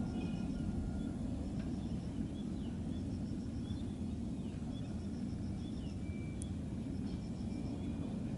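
Steady low rumble of a distant jet airliner on its landing roll, with small birds chirping and trilling faintly on top.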